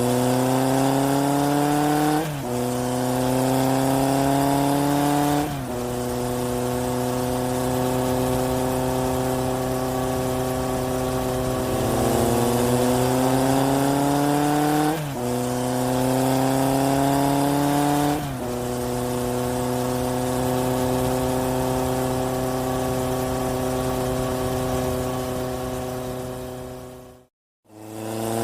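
Car engine sound effect of hard acceleration through the gears. Its pitch climbs slowly, then drops sharply at each of about five gear changes, and it cuts off abruptly near the end. It is dubbed in over the drive in place of music.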